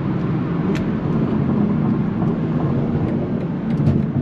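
BMW M340i's B58 three-litre turbocharged inline-six running steadily while driving, with road noise.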